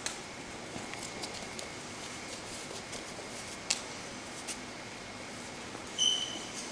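Weimaraner puppy playing with rubber toys: a few sharp taps and clicks as the toys knock about. About six seconds in, a brief high squeak from a squeaky toy.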